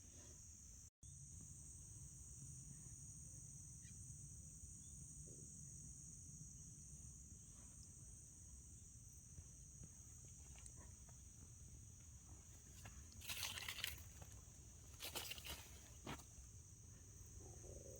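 Faint, steady high-pitched insect chorus, with two brief crunching noises about thirteen and fifteen seconds in.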